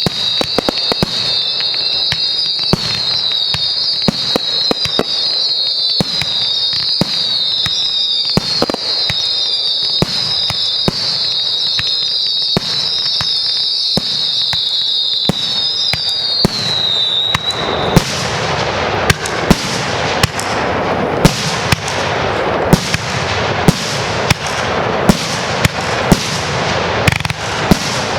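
Fireworks show firing: a high, wavering whistle from many whistling effects at once, over rapid sharp bangs, ends about seventeen seconds in. A dense barrage of crackle and bangs follows.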